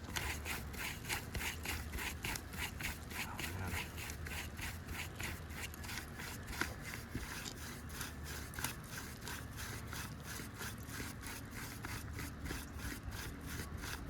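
Rhythmic back-and-forth sawing and scraping, about three strokes a second, of a tool working under an asphalt roof shingle to free it from its nails and seal for removal.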